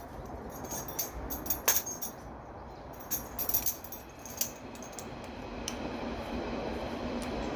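A scatter of light metallic clinks and rattles from gym gear being handled, in the first half, over a steady rushing background that swells slightly near the end.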